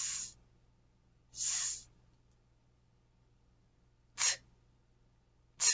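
A person's voice sounding out letter sounds: two drawn-out hissing "sss" sounds for the letter S, then two short, crisp "t" sounds for the letter T.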